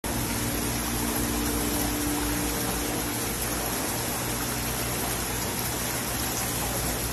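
Steady rush of running water at a pool, with a low hum underneath that is strongest in the first two seconds.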